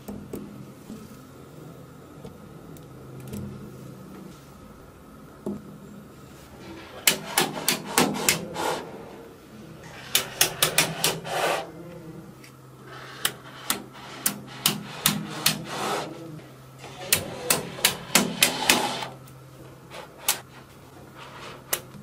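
Small magnetic balls clicking and snapping together as bars of balls are set down and joined: several runs of rapid sharp clicks with quieter pauses between them, over a faint steady low hum.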